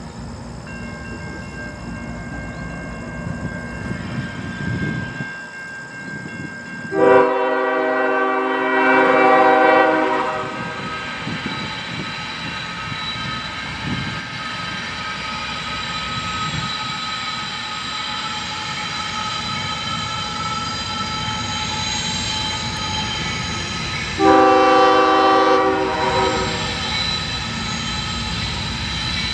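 Approaching diesel freight train sounding its multi-chime air horn twice: a long blast about seven seconds in and a shorter one near the end, over the steady rumble of the train drawing closer.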